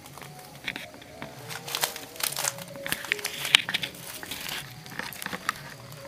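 Irregular crinkling and crackling rustle with scattered sharp clicks, thickest in the middle and loudest about three and a half seconds in.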